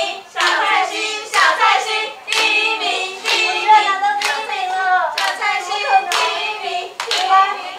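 Hand claps keeping a steady beat of about one a second, with high voices singing along.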